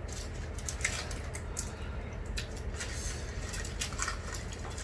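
Close-miked eating sounds of spicy noodles and rice cakes: irregular wet chewing and lip-smacking clicks.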